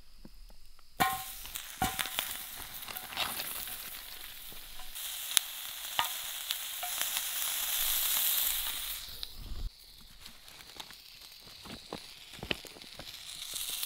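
Bratwursts sizzling in a skillet over a campfire. The sizzle starts suddenly about a second in, with a clink as they go into the hot pan, and falls away to quieter scattered crackles and ticks near the end.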